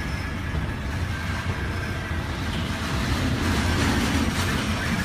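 Hurricane wind blowing hard: a steady, deep rumble with a hiss over it, growing a little louder about three and a half seconds in.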